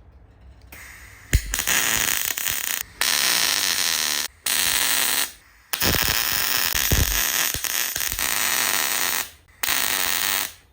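Welding arc crackling on a steel wheel-arch lip, laid down in five runs of one to three and a half seconds with short breaks between them, the first starting about a second in.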